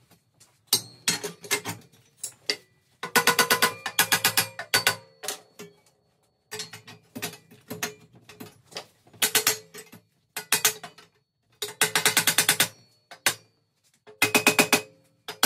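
Stainless steel exhaust manifold tubes clinking and rattling against each other and the jig as they are handled and fitted together. The rattling comes in several bursts of rapid knocks, with a faint metallic ring under them.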